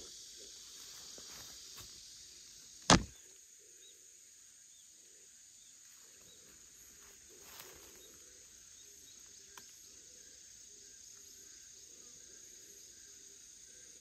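Cicadas buzzing in a steady high drone, stronger for the first few seconds and then fainter, with a single sharp knock about three seconds in.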